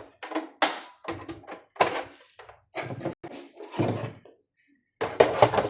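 A series of knocks, clunks and rattles from the opened Mindray T5 patient monitor's casing and boards being handled and fitted back together, about seven separate bumps with the loudest cluster near the end.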